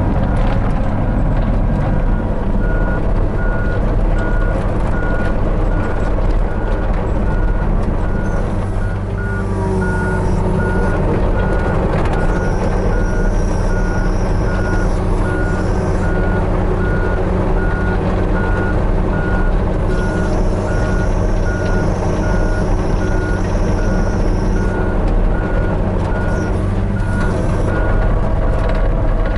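Hitachi 35U mini excavator's diesel engine running steadily under load, with an alarm beeping at an even rate. A higher whine comes and goes in the middle.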